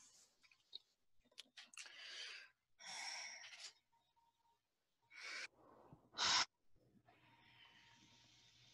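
A person's breathing close to a microphone: several short, noisy breaths or sighs, with a sharper, louder one about six seconds in.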